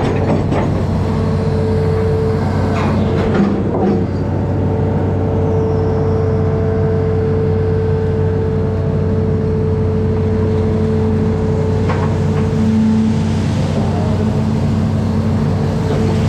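Amphibious excavator's diesel engine running steadily under a constant low hum, with a few short knocks about three to four seconds in and again around twelve seconds.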